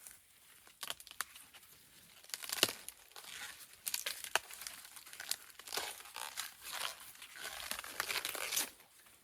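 Crackly rustling and crinkling of something being handled, with many scattered sharp snaps, busiest from a couple of seconds in until shortly before the end.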